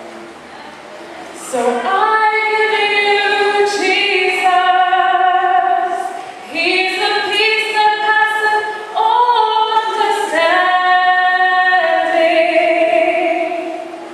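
Female voices singing a slow gospel song with long held notes, in three phrases.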